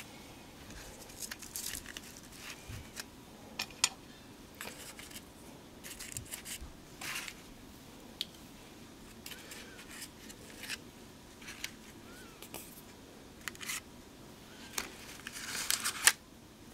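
Paper craft pieces being handled on a tabletop: scattered short rustles and small taps at irregular intervals, with a denser run of rustling near the end.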